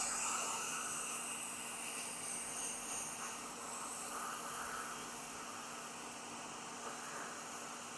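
Hot-air rework station blowing a steady hiss of air, with a faint electrical hum, as a shorted MOSFET is heated off a MacBook Pro logic board. The hiss eases slightly after about four seconds.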